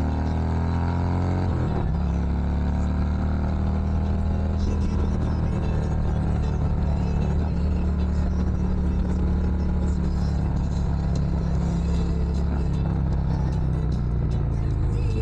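Vehicle engine running while driving: it rises in pitch, drops back about two seconds in, then runs steadily at cruising speed.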